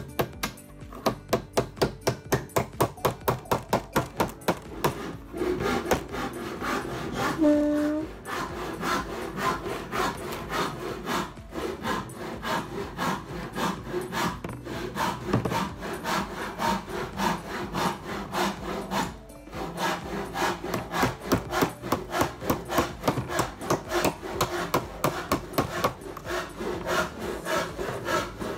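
Claw hammer striking nails into a wooden board: a quick, steady run of knocks, about three a second at first, then closer together.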